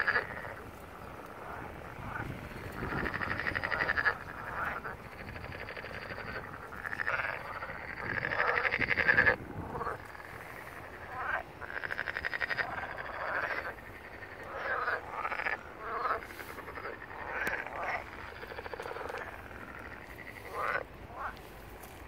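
Frogs croaking: rapid rattling calls, some drawn out for two or three seconds and others short, repeating every second or two.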